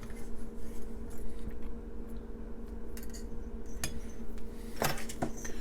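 Scattered light clicks and clinks of a small folding knife and a measuring rule being handled, over a faint steady hum.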